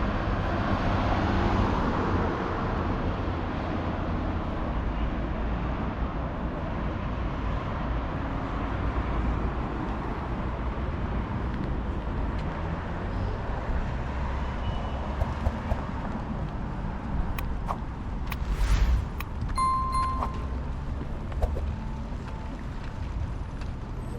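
City street ambience with a steady rumble of road traffic. A louder swell comes through about nineteen seconds in, followed by a short high beep.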